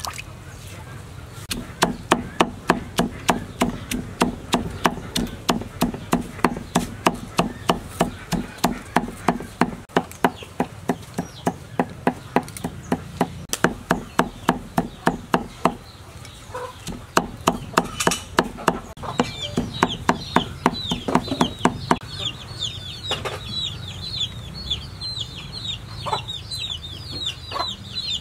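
Knife chopping dried red chillies on a wooden chopping block, steady strokes about three to four a second, pausing briefly and then stopping a few seconds before the end. Over the last part a bird chirps rapidly in the background.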